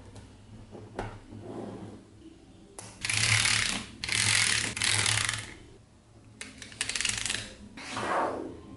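Small magnetic balls clicking and rattling against one another as a slab of them is bent, folded and pressed by hand. There are a few light clicks at first, then two loud rattling bursts of about a second each, and shorter runs of fine clicks near the end.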